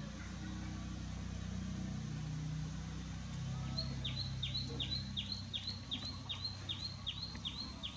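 A motor vehicle engine running nearby, its pitch shifting now and then. From about halfway in, a rapid, regular series of short high chirps begins, about three a second, each falling sharply in pitch.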